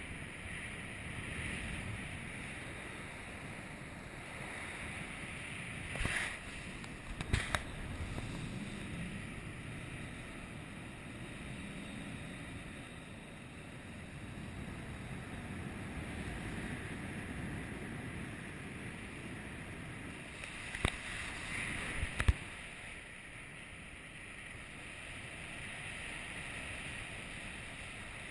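Wind rushing over the microphone of a camera carried on a paraglider in flight, a steady rumbling hiss. Two pairs of short sharp knocks break through, one pair about a quarter of the way in and one about three quarters of the way in.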